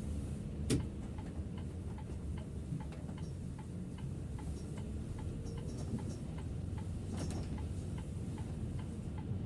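Setra S 531 DT double-decker bus's turn-signal indicator ticking steadily, about two and a half ticks a second, over the low running rumble of the bus. A single sharp knock comes just under a second in.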